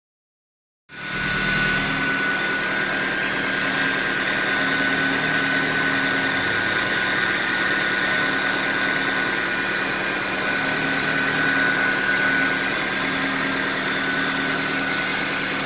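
Honda DOHC VTEC four-cylinder engine idling steadily, with a steady high whine over it; it starts abruptly about a second in. It runs evenly with no hesitation, now that the corroded distributor cap contacts and rotor have been cleaned.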